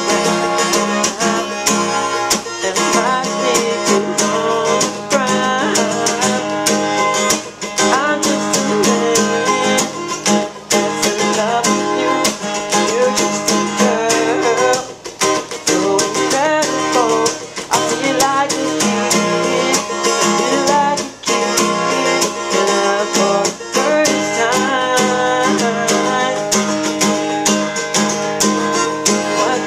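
Guitar playing a pop-funk song in an instrumental stretch with no sung words.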